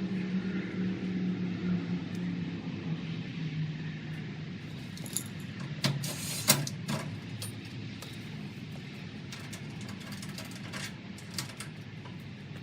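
Dryer motor humming as it winds down, its pitch slowly dropping and fading over the first few seconds, followed by scattered metallic clicks and knocks, the loudest about six seconds in.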